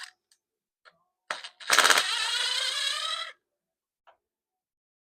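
Power impact wrench hammering in one burst of about two seconds as it spins a bolt off the engine, with a few light clicks of tools around it.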